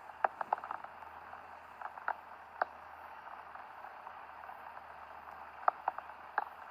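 Steady rain falling, an even hiss, with irregular sharp taps of drops striking close by.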